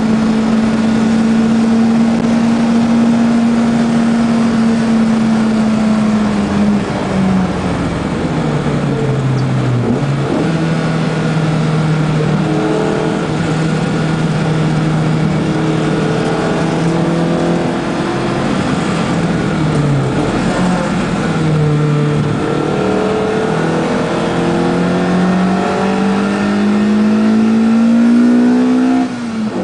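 BMW M3 E30 with a DTM racing engine, heard from inside the cabin at speed. The four-cylinder's note falls as the car slows for corners and climbs again under acceleration, with a gear change shortly before the end.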